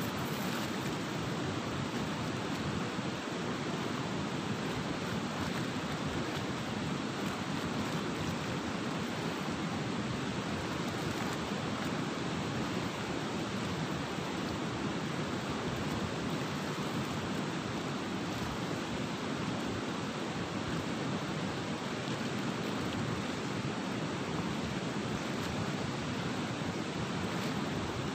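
Steady, even rushing of fast, turbulent river water.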